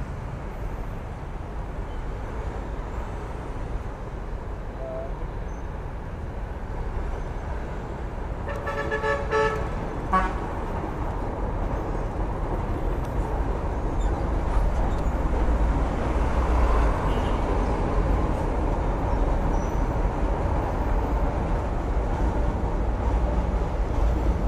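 Steady rumble of passing road traffic, growing louder in the second half. About nine seconds in, a vehicle horn honks in a quick run of short beeps, then gives one more short toot.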